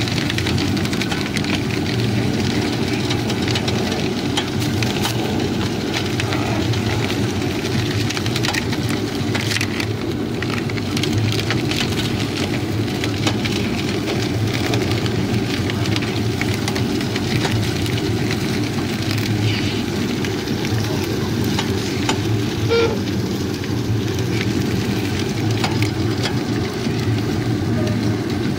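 Sugarcane crushing machine running steadily with a low mechanical hum, with a dense crackling and snapping as cane stalks are crushed between its rollers to press out the juice.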